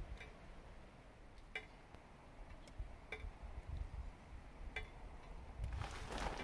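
Faint outdoor ambience with a low rumble and short, high ticks about every one and a half seconds. Footsteps start near the end.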